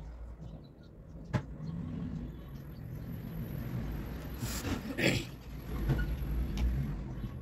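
Low rumble of a passing motor vehicle, building over a few seconds and fading near the end. A sharp click comes about a second and a half in, and two brief swishing noises come in the middle.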